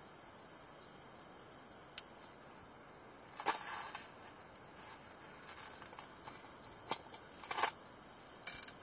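Light metal clicks from a small stainless dog-tag folding knife being handled, with a metal ball chain rattling in short bursts three times: about three and a half seconds in, near the middle of the second half, and again near the end.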